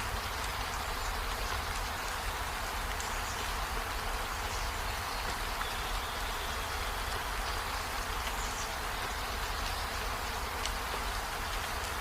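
Steady rain falling: an even hiss with a few scattered drop ticks.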